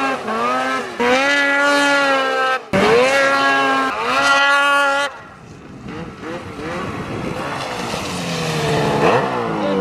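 Ski-Doo two-stroke snowmobile engine revving hard close by, its pitch climbing and dropping with the throttle for about five seconds. Then it falls away to a quieter snowmobile engine that grows steadily louder as the sled comes back.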